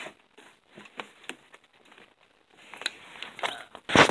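Handling noise from a drawer of plastic-wrapped sanitary pads: soft crinkles and a few light clicks, then one loud knock about four seconds in as a drawer is moved.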